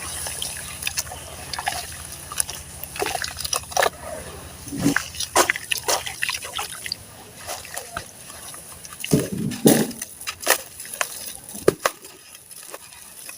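Wet sand-cement slabs crumbling in a tub: irregular gritty crunches and crackles with wet sloshing, a few louder crunches clustered late on.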